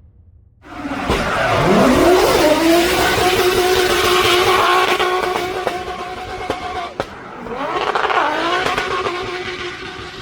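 Racing car engine cutting in suddenly and revving up hard, holding a high note, then dropping briefly about two-thirds of the way through before climbing again.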